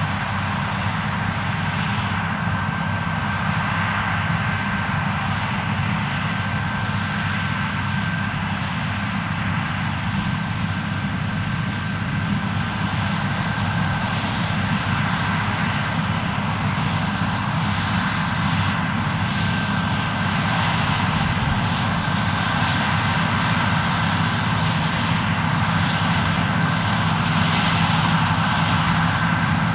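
Claas Lexion 770 TT combine harvester running steadily under load while cutting wheat: a continuous engine drone with a thin steady whine of machinery over it, growing slightly louder over the last ten seconds or so.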